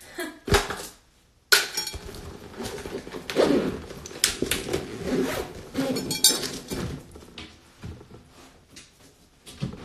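Handling noise: an irregular run of clinks, taps and knocks as small hard objects are moved about and set down close to the phone's microphone.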